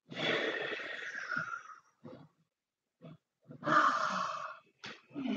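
A person's heavy, breathy exhales during an exercise, in several bursts: a long one starting just after the start, a few short puffs, and another long one about four seconds in.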